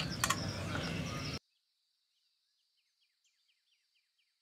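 Insects chirping in a steady high buzz, with a couple of metal clicks of a fork stirring noodles in a small frying pan; about a second and a half in, the sound cuts off abruptly into dead silence.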